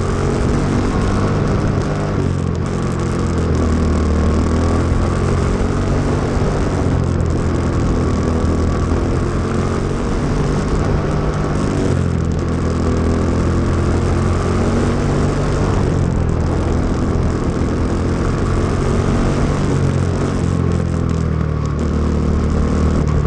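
Quarter midget's Briggs & Stratton Animal single-cylinder engine running hard at close range. Its pitch sags and picks up again about every four to five seconds as the car goes through each turn of the dirt oval.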